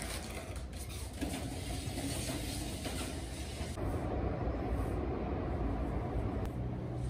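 Soft scuffs of slippers and a hand wiping the laminate floor with wet wipes, over a steady low rumble of background noise.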